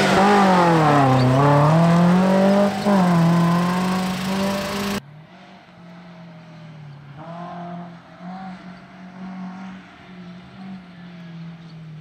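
Suzuki Jimny off-road rally car's engine revving up close, its pitch dipping and then rising again. About five seconds in it cuts to the same engine heard from afar, much quieter and steadier.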